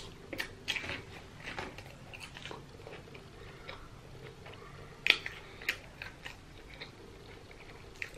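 A person chewing and biting food close to the microphone, with scattered sharp crunchy clicks; the loudest two come about five seconds in.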